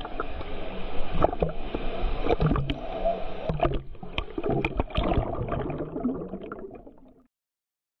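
Water splashing and gurgling, with irregular sharp splashes, cutting off abruptly about seven seconds in.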